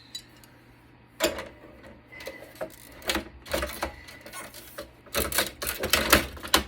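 A part being pried and torn off a Cisco Catalyst switch's circuit board: a string of sharp clicks and cracks, sparse at first, then a fast dense run in the last second and a half, the loudest part.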